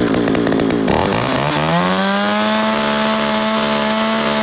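Komatsu G365 36cc two-stroke chainsaw being test-run. Having just fired up, its revs drop back in the first second; then the throttle is opened and it climbs to high revs, held steady.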